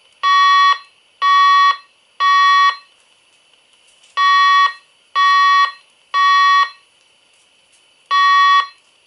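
Fire alarm speaker (a Wave 2 siren speaker fitted in an Edwards speaker/strobe) sounding the temporal-three evacuation tone: loud half-second beeps in groups of three, a pause, three more, and the first beep of the next group near the end.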